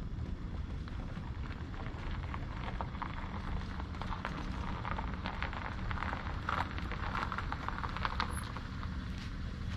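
Low steady rumble of a car idling nearby, with scattered light clicks and crackles, busiest in the middle, from radio gear being handled and footsteps on sandy ground.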